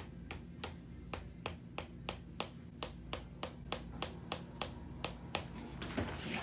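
Handheld chiropractic adjusting instrument firing a steady train of sharp clicks, about three a second, stopping about a second before the end, followed by one duller thump.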